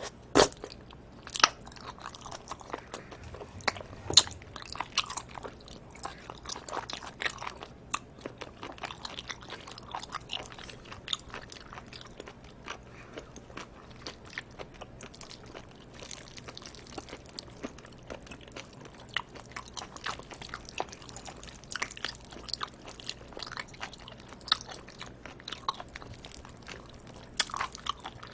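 Close-miked chewing and biting of live octopus with cold spicy noodles: a steady run of sharp wet clicks, a few much louder ones in the first four seconds.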